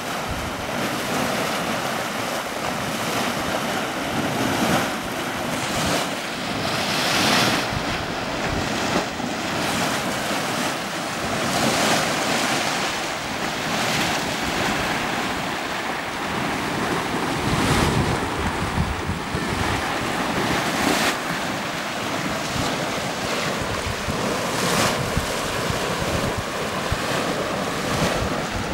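Churning Caldron, a boiling grey hot spring, churning and sloshing steadily like surf. Wind buffets the microphone now and then, most heavily a little past the middle.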